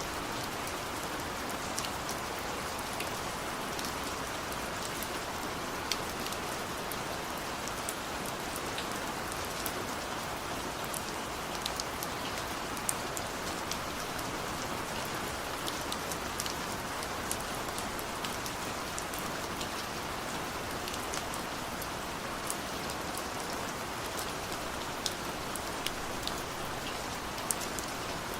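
Heavy rain falling steadily, a dense even hiss with many separate drops ticking sharply on a hard surface.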